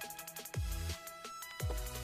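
Electronic background music with a steady beat and deep bass notes that slide down in pitch, twice.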